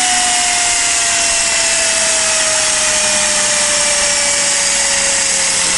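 Steam-driven Tesla disc turbine running: a loud, steady hiss of steam jetting through it, with the turbine's whine slowly falling in pitch as it slows. The turbine is driving a car alternator as its load.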